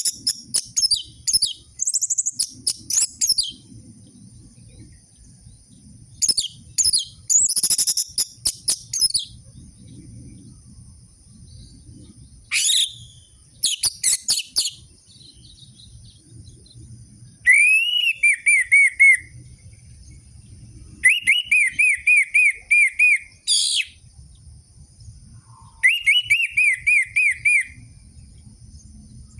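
Orange-headed thrush (anis merah) singing in separate phrases. First come bursts of fast, scratchy twittering; from about halfway, runs of rapid repeated whistled notes follow, each run lasting one to two seconds. A steady thin high tone runs underneath.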